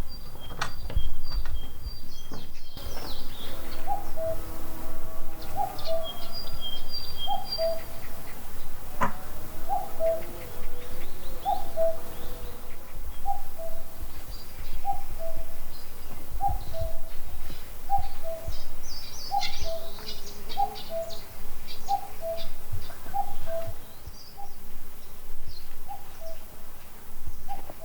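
A bird repeating a two-note falling call, high then low, about once every second and a half, with other small birds chirping higher up and a few soft knocks.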